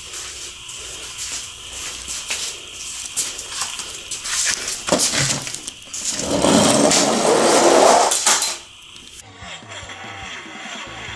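Die-cast toy monster truck clicking and clattering against an orange plastic Hot Wheels track as it is handled. About six seconds in comes a loud rattling rush of about two seconds, the truck rolling fast down the track, which stops abruptly. Quiet music starts near the end.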